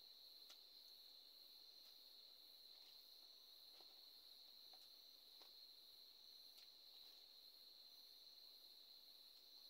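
Near silence with a faint, steady high-pitched drone and a few faint clicks, heard while someone eats by hand from a foil plate.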